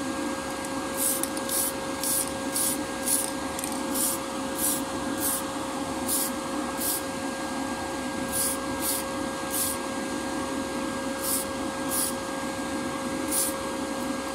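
An aerosol spray-paint can is sprayed in about eighteen quick short hisses, in irregular runs with pauses of a second or so, coating a part in black. Under it runs the steady hum of a spray booth's extraction fan.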